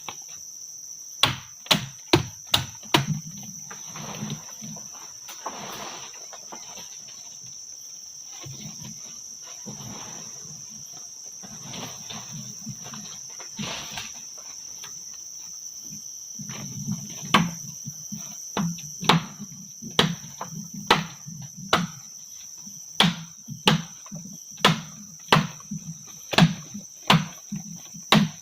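A steady high-pitched insect drone, such as crickets, runs throughout. Over it come sharp knocks of a tool striking something: a few at the start, then a regular run of about one knock a second through the second half.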